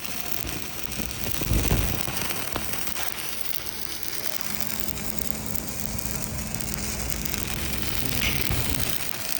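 Electric welding arc running steadily, an even noisy hiss across the whole range, with a low thump about a second and a half in and a faint steady hum joining about halfway through.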